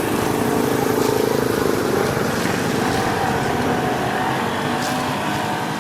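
A motor vehicle's engine running steadily with a fast low flutter, fading a little near the end.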